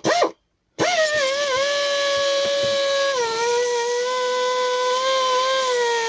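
Small electric power tool spinning up about a second in, then running with a steady whine over a hiss. Its pitch sags slightly twice as it is pressed against the steel, sanding the blade.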